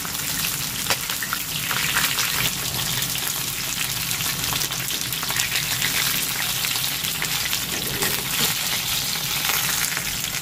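Flour-coated chicken thigh shallow-frying in a few tablespoons of oil in a frying pan, a steady sizzle with scattered small pops. It is the second side cooking after the skin side has been crisped.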